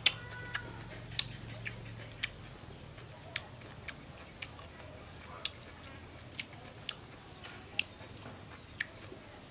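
Wet mouth clicks and lip smacks of someone eating juicy grapefruit segments: about fifteen sharp, irregular clicks, one every half second to a second, the loudest right at the start.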